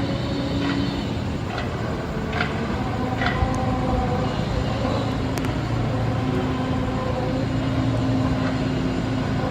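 A sustained drone of several steady tones over a rumbling haze, with a few brief clicks in the first half: one of the 'strange noise in the sky' recordings, of unknown source.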